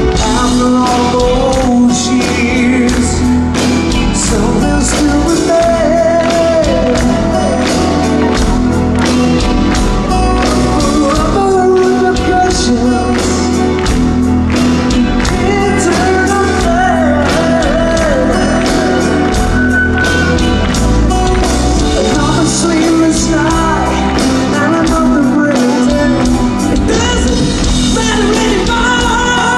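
Live hard rock band playing loud: steady drums, electric guitars and a male lead vocal singing, recorded from the audience.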